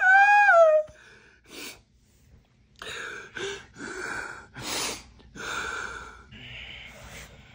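A man's exaggerated, comic crying in a high falsetto: a loud wail falling in pitch in the first second, then about six gasping, sobbing breaths.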